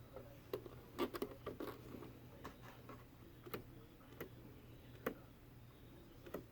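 Faint, irregular clicks and light knocks, roughly one a second and sometimes in quick pairs, over a low steady hum.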